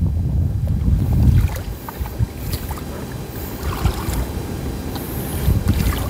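Wind buffeting the microphone, strongest in the first second and a half, over shallow seawater sloshing with small scattered splashes.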